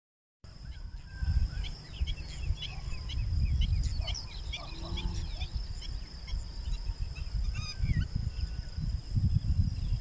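Wind buffeting the microphone in irregular gusts, over many birds calling with short chirps, busiest in the first half. A steady high-pitched whine runs behind them.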